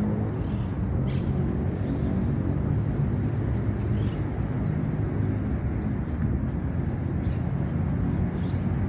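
Steady rumble of road traffic, with a low engine hum running under it.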